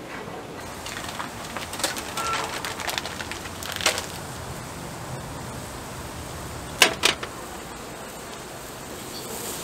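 Food-stall prep handling noises: a plastic bag rustling and scattered light knocks, with two sharp clacks close together about seven seconds in.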